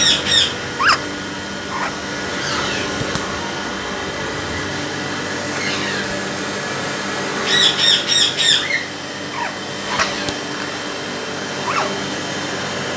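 African grey parrot calling in short harsh squawks, in two clusters, one at the very start and one about halfway through. A few short rising whistles come between them. A steady mechanical hum runs underneath throughout.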